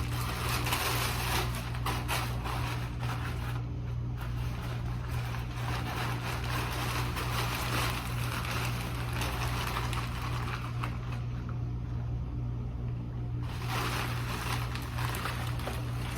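Rustling and crackling of the animatronic's fabric and plastic costume, the inflatable body cover, being handled and pulled on, over a steady low hum. The rustling pauses briefly about 4 s in and again for a couple of seconds past the middle.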